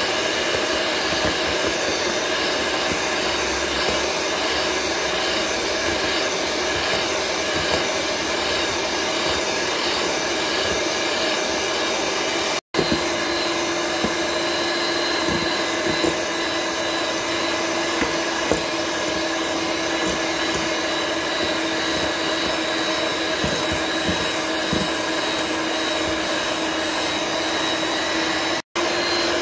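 Electric hand mixer running steadily at speed, its beaters whipping egg whites into a thick foam in a stainless steel bowl. There are a few light taps, and the sound breaks off for an instant twice.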